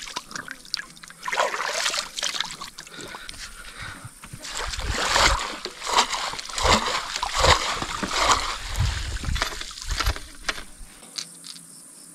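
Hands splashing and rinsing in river water at the side of a boat, then a pole swished back and forth through the water, giving irregular splashes and sloshes. About eleven seconds in the splashing stops, leaving a faint steady insect chirring.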